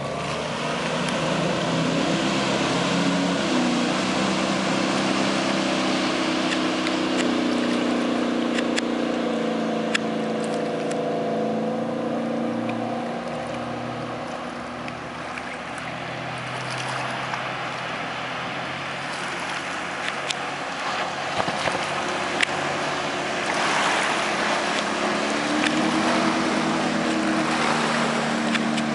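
Cobalt 24SD sterndrive runabout running past at speed. Its engine drone rises in pitch about two seconds in, fades through the middle and builds again near the end, over a steady rushing hiss of hull and spray on the water.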